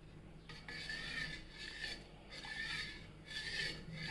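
A spoon scraping round the bottom of a pot in repeated strokes, about one a second, while stirring hot milk with lemon water so that it curdles into chhena for rasgulla.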